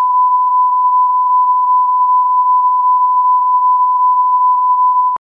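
Broadcast line-up test tone at 1 kHz, a single steady pure beep held without change, which cuts off abruptly near the end.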